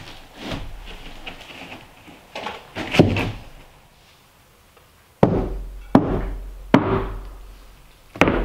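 A series of sharp thuds, each dying away quickly; the loudest come in the second half, roughly a second apart.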